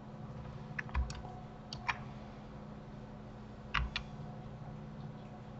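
Computer keyboard and mouse clicks: a few short clicks, some in quick pairs, about a second in, near two seconds and near four seconds, over a steady low hum.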